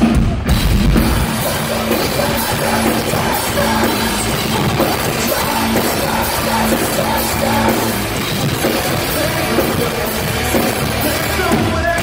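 Metalcore band playing live, loud heavy rock with a full drum kit, starting on a heavy low hit.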